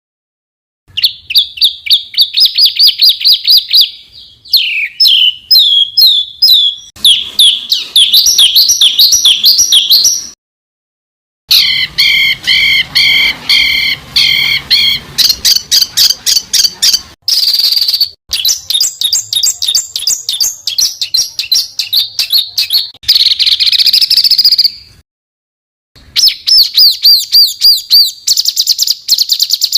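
A masteran tutor track of songbird song: a string of different birds' fast, high-pitched repeated notes and trills, spliced one after another. The song breaks off into silence about three times, for roughly a second each, between segments.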